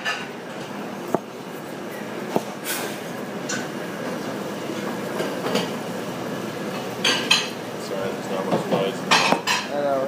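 Kitchen prep sounds: scattered sharp knocks of a chef's knife on a plastic cutting board and clinks of utensils and containers over steady background noise. The knocks come thicker near the end.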